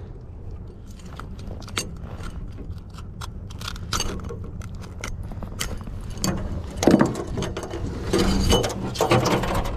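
Metal fishing pliers and a spoon lure's treble hook clicking and rattling as the hook is worked out of a northern pike's jaw: a string of small metallic clicks, busiest and loudest in the last few seconds.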